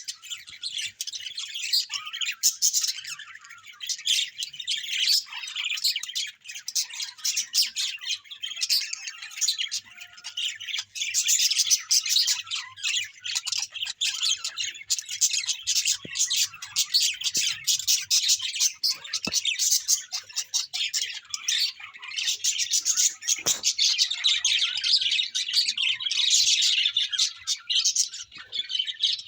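A flock of small birds chirping, many short calls overlapping without a break.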